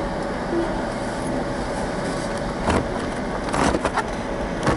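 Car running, heard from inside the cabin as a steady rumble, with a few short sharp clicks or knocks in the second half.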